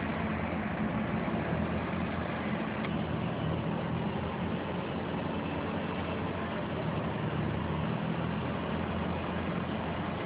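Lamborghini Diablo's V12 engine idling steadily, a low, even hum.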